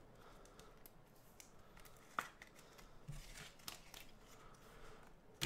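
Near silence with faint handling noise: light clicks and rustling of trading cards in hard plastic holders, with one sharper click about two seconds in.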